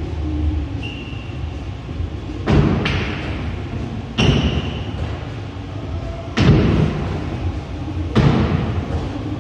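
Background music with a slow beat: deep, ringing drum hits about every two seconds over held tones.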